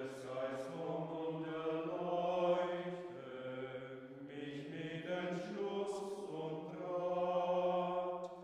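Voices singing a slow chant in long held notes that shift in pitch every second or two.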